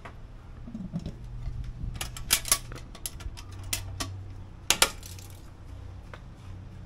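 Aluminium lid of a CanCooker being set onto the pot and its latches clamped shut: a run of light metallic clinks and clicks. The sharpest come about two and a half seconds in and again near five seconds.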